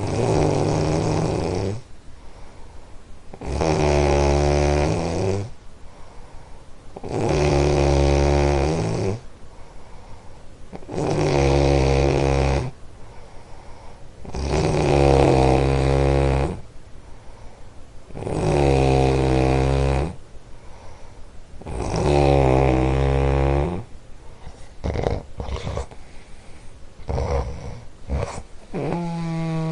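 A sleeper snoring loudly and rhythmically: seven long snores in a row, about one every three and a half to four seconds. Near the end come a few shorter, weaker, broken snores.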